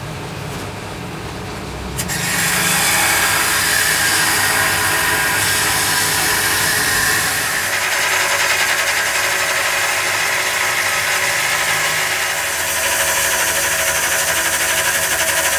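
Straight-shaft grinder with a small abrasive disc grinding the cast iron of a tractor transmission housing, a steady high grinding that starts about two seconds in.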